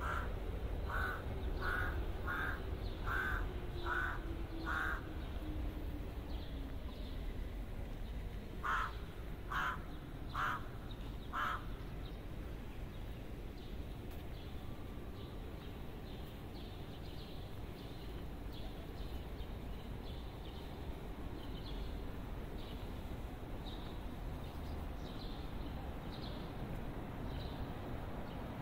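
A crow cawing in two runs of harsh, evenly spaced caws: about six over the first five seconds, then four more from about nine seconds in. A steady low rumble of city background runs underneath.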